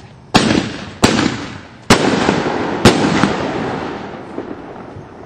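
Fireworks going off: four loud bangs about a second apart, each followed by a rumbling echo that slowly dies away.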